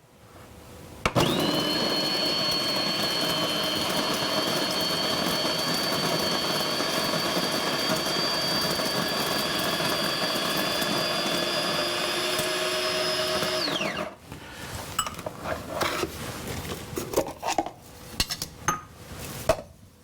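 Sowtech BD-CG-011 burr coffee grinder's electric motor switching on about a second in and grinding beans at a medium pour-over setting for about thirteen seconds: a steady whine whose pitch creeps slightly higher, then it switches off and the whine falls away quickly. After it comes a scattering of light clicks and knocks.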